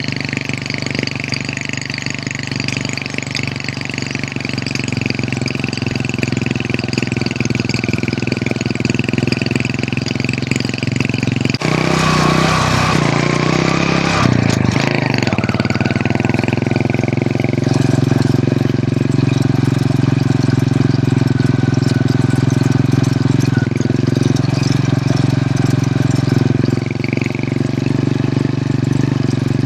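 Hero Honda CD100's single-cylinder four-stroke engine running steadily on the move. About twelve seconds in, a brief burst of noise lasts a couple of seconds, after which the engine note runs a little louder.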